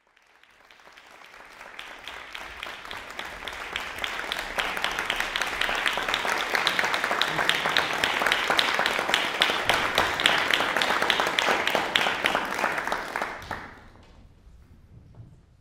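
Small audience applauding. The applause fades in, builds to its loudest past the middle, then dies away about fourteen seconds in.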